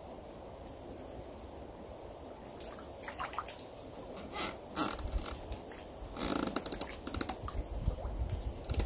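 A hooked native crucian carp splashing at the pond surface as it is drawn in on a pole rod: scattered small splashes from a few seconds in, growing busier about six seconds in, over a low rumble.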